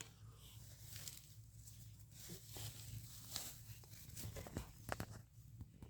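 Faint rustling and scattered light clicks of a hamster moving about in its cage bedding, over a low steady hum.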